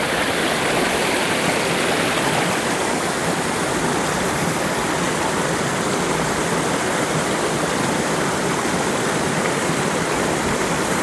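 Waterfall rushing: a loud, steady roar of falling water with no change throughout.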